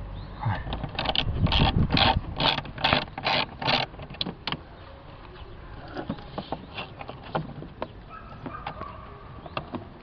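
Rhythmic scraping clicks of metal parts, about two a second for the first four seconds, from working loose the battery hold-down fastening in a Corsa C's engine bay. After that come only scattered faint clicks.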